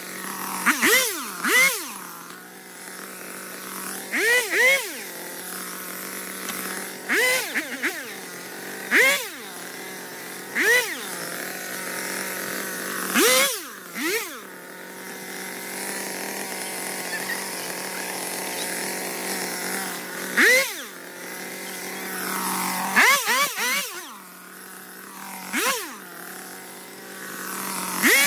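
Stihl chainsaw idling and revved in about fifteen short bursts, each rising sharply in pitch and dropping straight back to idle, one every second or two.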